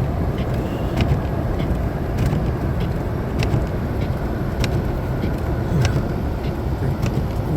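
Car driving on a snow-covered road: a steady low rumble of engine and tyres, with scattered faint clicks.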